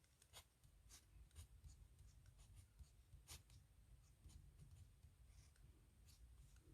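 Faint scratching of a pen nib on paper as Korean characters are handwritten, in short irregular strokes several times a second.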